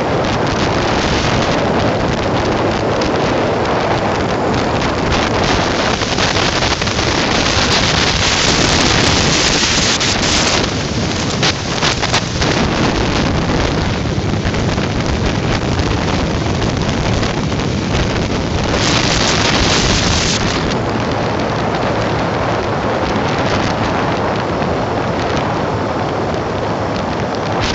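Wind rushing over the microphone of a phone held on a moving motorcycle at highway speed, with the bike's running noise underneath. The rush swells louder twice, about eight seconds and nineteen seconds in.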